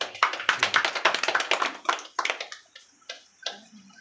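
A small group of people clapping: dense applause for about two and a half seconds, thinning to a few scattered claps.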